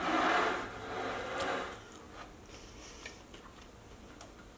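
White ceramic serving platter slid across a tabletop, a grainy scrape in two pushes lasting about two seconds, followed by a few faint clicks.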